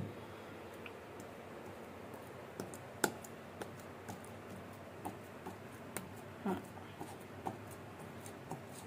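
A child's hand kneading soft dough in a bowl: quiet handling with scattered light clicks and taps against the bowl, the sharpest about three and six seconds in.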